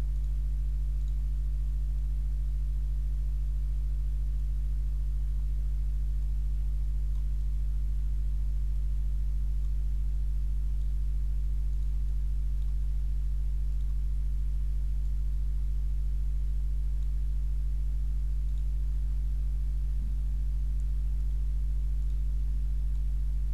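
Steady low electrical hum with a stack of even overtones, unchanging throughout: mains hum picked up by the recording.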